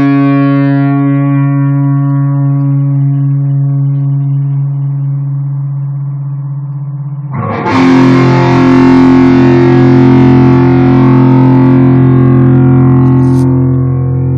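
Guitar played through a distortion effect: a held chord rings out and slowly fades, then about halfway through a new chord is struck and left to sustain.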